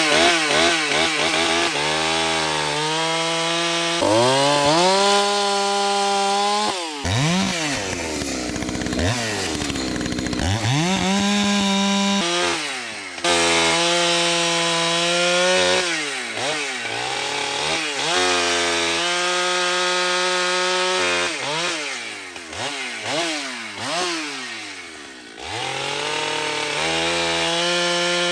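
Husqvarna two-stroke chainsaw cutting firewood. It revs to full throttle and holds steady through each cut, then drops back to idle and blips the throttle between cuts, several times over.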